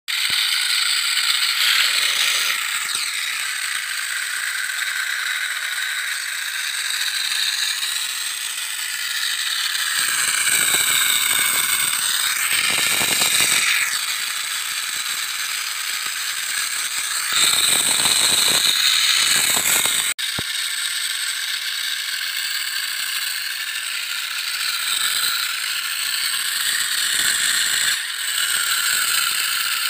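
Toy army tanks driving on their own, their small electric motors and plastic gears whirring and rattling without a break. The sound grows louder and fuller twice, at about ten seconds and again at about seventeen.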